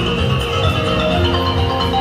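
Music with a steady bass beat under a bright melody.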